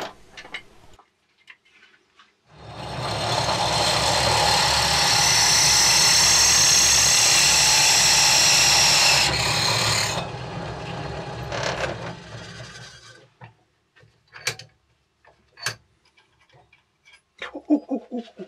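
Bench drill press starting up and drilling into a small metal bracket held in a machine vise: a loud, steady cutting noise with a high whine over the motor hum for about seven seconds. It then runs on more quietly and winds down to a stop, with a few light clicks near the end.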